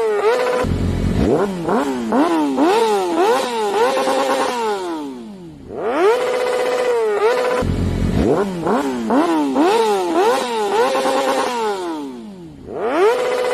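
Yamaha R6 sport bike's high-revving inline-four engine accelerating hard: it revs up to a briefly held scream near redline, climbs and drops in pitch through several quick gear changes, then falls away in pitch and loudness. The same run happens twice.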